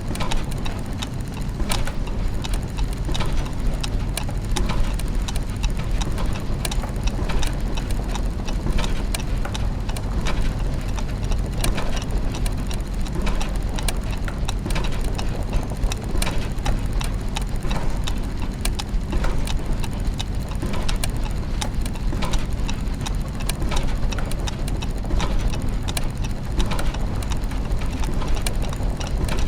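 Layered clockwork machinery: ticking and clicking gears and ratchets over a constant low mechanical hum, the clicks coming thick and irregular.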